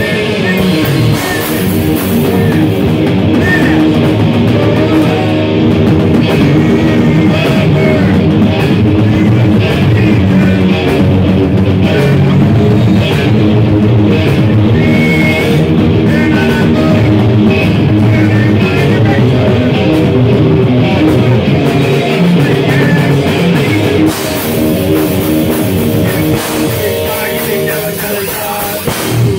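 Loud rock music: a drum kit played hard with sticks, along with guitar. The playing changes character a little about 24 seconds in.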